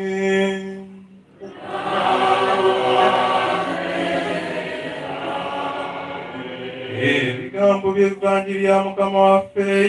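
Gospel acclamation sung at Mass: a solo voice holds a note, then from about a second and a half in the congregation sings together, and a solo voice takes up the line again about seven and a half seconds in.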